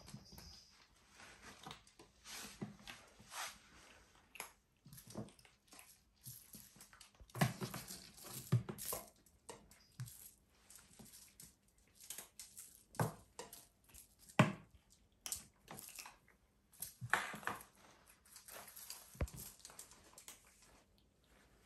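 A kitten playing: irregular soft knocks and scratchy scuffles of paws and claws against a carpeted cat scratcher and a tile floor as it wrestles a toy mouse on a string. The louder knocks come in a scattered handful, not in any rhythm.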